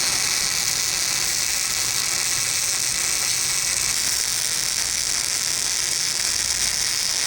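Welding arc sizzling steadily, an even high-pitched crackling hiss without a break.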